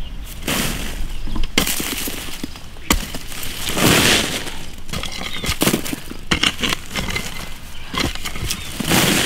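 A hoe scraping and chopping into dry clods of earth, the soil crunching and crumbling as it is dragged over a buried pit, in a series of irregular strokes.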